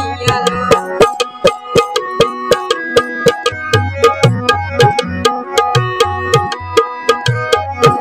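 Tabla and harmonium playing without voice: a quick, steady tabla rhythm with deep strokes from the bass drum under the harmonium's held chords.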